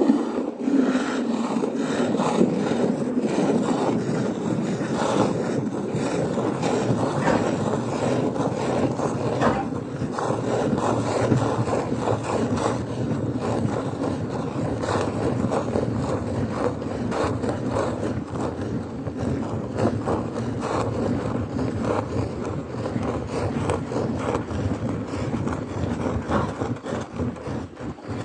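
A cow being milked: a continuous rasping, scraping noise dense with small clicks, which starts suddenly and runs without a break.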